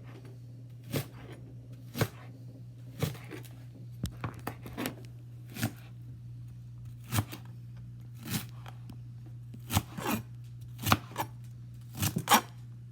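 Kitchen knife slicing leeks into thin half moons on a cutting board, a sharp cut hitting the board about once a second, some in quick pairs. A steady low hum runs underneath.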